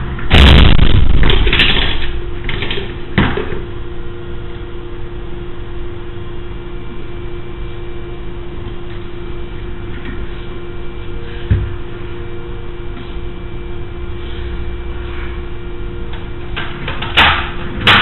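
Steady electrical hum on a surveillance camera's low-quality audio track. A loud burst of noise comes about half a second in and lasts over a second, a shorter knock follows about three seconds in, and two sharp knocks come near the end.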